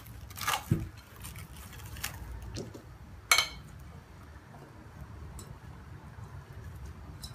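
Boiled chickpeas tipped by hand from a plate with plastic cling film over it into a ceramic bowl: the plastic crinkles and the chickpeas patter softly as they drop. There is one sharper tap about three seconds in.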